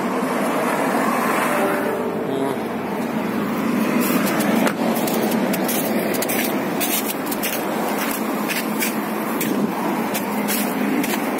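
Footsteps crunching on icy snow and slush, about two a second, starting a few seconds in, over a steady rushing background noise.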